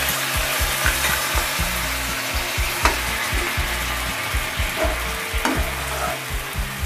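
Jaggery and sugar in water heating in a frying pan, sizzling steadily, with a spoon stirring and now and then knocking against the pan as the jaggery melts.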